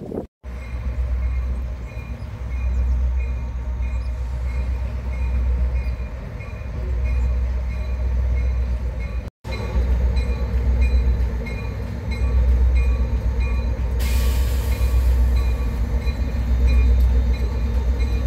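Diesel locomotive-hauled passenger train passing, with a deep rumble that swells and fades every couple of seconds and a light clicking repeating a few times a second. A hiss joins in about two-thirds of the way through.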